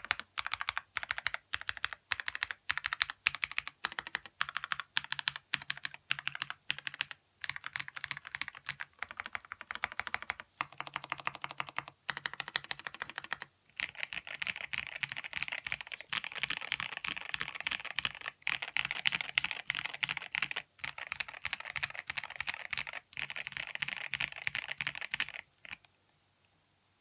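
Typing on a Mistel MD750 Delight JIS 75% mechanical keyboard: continuous runs of keystrokes with a few short pauses. The typing gets denser and brighter about halfway through and stops shortly before the end.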